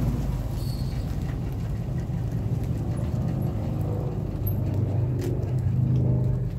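Nissan Armada's V8 engine running at low speed as the SUV drives slowly past, towing a bass boat on its trailer; the low engine note grows a little louder about five seconds in.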